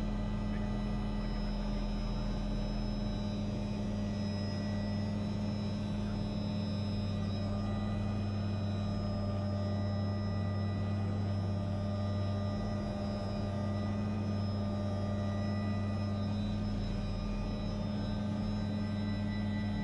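Helicopter running steadily, heard from inside the cockpit: a constant drone with a strong low hum.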